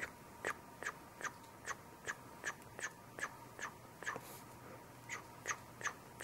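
A small, fine paintbrush dragging short, quick strokes of white acrylic across a textured painting surface, making a scratchy swish on each stroke, about two or three a second, with a brief pause partway through.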